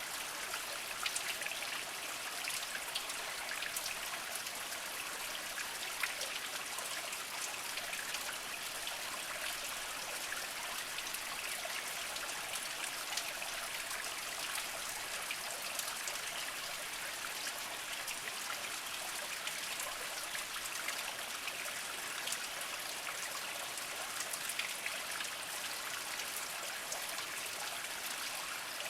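Small mountain spring trickling and dribbling over mossy rocks, a steady light splashing with frequent small drips standing out.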